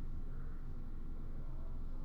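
Steady low background hum of a room, with no distinct sounds.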